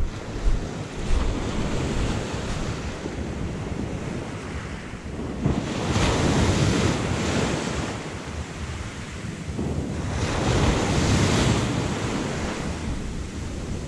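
Sea waves washing in, swelling louder twice, with wind buffeting the microphone.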